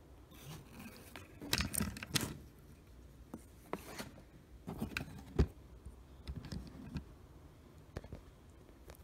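Handling noise from a small diecast model truck and the camera being moved around by hand: scattered clicks, scrapes and rubbing, with the sharpest click about five and a half seconds in.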